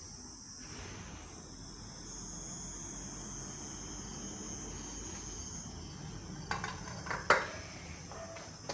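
Steady high chirring of crickets, then a few sharp clicks and knocks about two-thirds of the way in as a metal dog food bowl is set down on a concrete floor.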